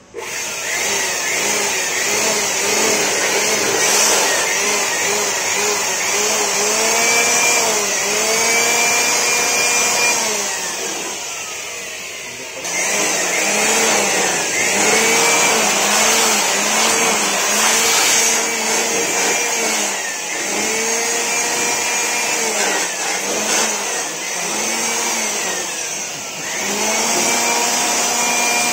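Electric dust blower running hard, blowing dust out of an open desktop PC case, its motor pitch wavering up and down as the nozzle is moved around. About ten seconds in it eases off with a falling whine, then comes back to full strength a couple of seconds later.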